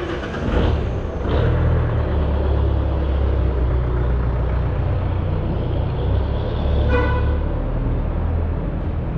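A vehicle's engine running steadily with a low rumble, and a short horn toot about seven seconds in.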